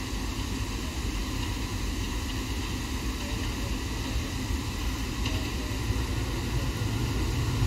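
Low, steady rumble of an approaching train's locomotive, growing slowly louder toward the end.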